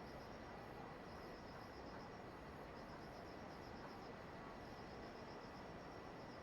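Insects, cricket-like, chirping in rapid pulsed trills that come in runs of about a second, over a faint steady hiss.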